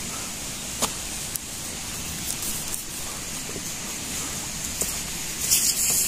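Steady rush of a stream running over rocks, with a few light knocks, louder near the end.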